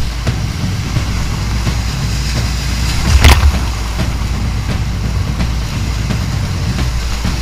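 Whitewater rapids rushing, a steady low rumble with a brief louder surge about three seconds in.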